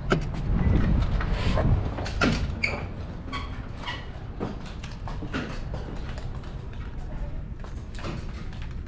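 Wind rumble and handling noise on a handheld camera's microphone for about the first two seconds. Then comes a quieter stretch of footsteps and scattered light clicks and knocks.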